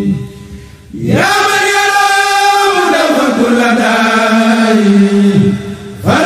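Unaccompanied male voices chanting a Sufi khassida, an Arabic religious poem. After a brief dip, a lead voice enters about a second in with a rising, drawn-out, ornamented line over a steady low held note. The line breaks off shortly before the end and rises again.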